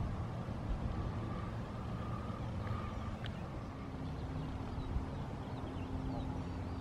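Steady low outdoor background rumble, with a faint tick about three seconds in and another about five seconds in.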